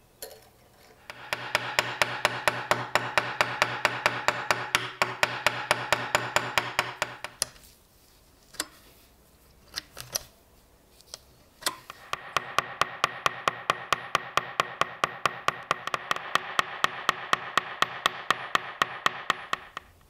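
A small workshop power tool running twice for several seconds each time, a steady hum with a rapid, regular clicking. A few separate clicks from handling fall in the pause between the two runs.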